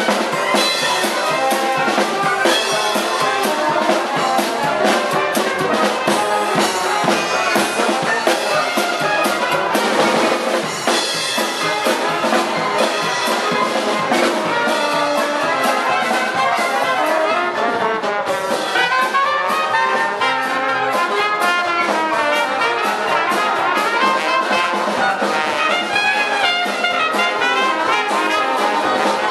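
Live Dixieland jazz band playing: trumpet and trombone leading over a drum kit, with steady cymbal and drum strokes throughout.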